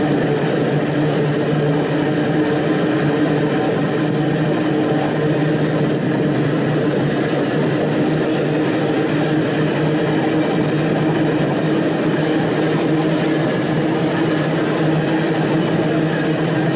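Open-top freight wagons of a long freight train rolling past on the rails, a loud, steady running noise of wheels on track with no breaks.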